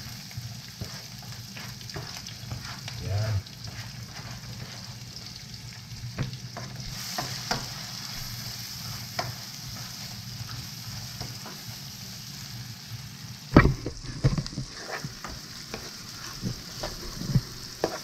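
Chopped red onion sizzling in hot oil in a frying pan as it is tipped in and stirred with a wooden spatula: a steady frying hiss with the spatula scraping and clicking against the pan. The sharpest knocks come about three-quarters of the way through.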